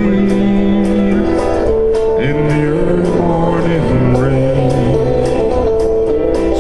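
Country ballad backing music with guitar and a steady beat, a melody line holding long notes that slide between pitches.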